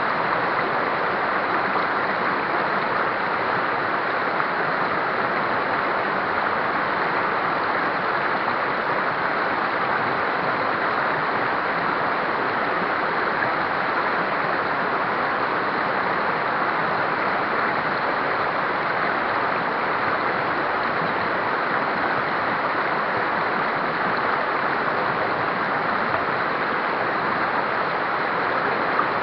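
River rapids rushing, a steady, unbroken roar of flowing water.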